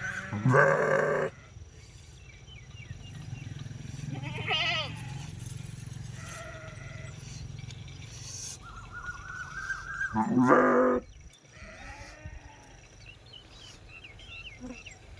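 Sheep bleating: two loud bleats, one just after the start and one about ten seconds in, with a fainter, wavering bleat between them about four and a half seconds in.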